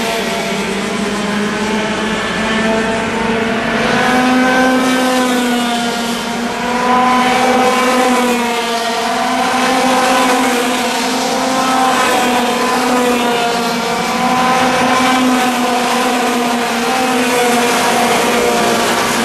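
Several Junior TKM racing karts' 100cc two-stroke engines running together at race speed, a high, buzzing drone whose pitch keeps rising and falling as the karts lap the circuit.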